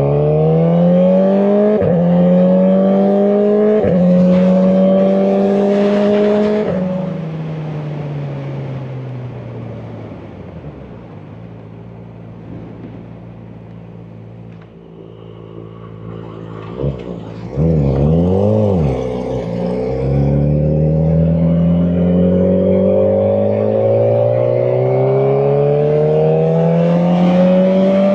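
Kawasaki Ninja ZX-4RR's 399 cc inline-four engine accelerating hard, its pitch climbing and dropping back at upshifts about two and four seconds in. It then eases off to a quieter low steady run, revs briefly a little past halfway, and climbs again under acceleration through to the end.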